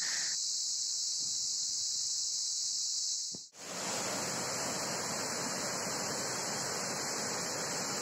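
Waterfall water rushing over rock, under a steady high-pitched insect chorus. A brief dropout about three and a half seconds in marks a cut, after which the water rush is fuller.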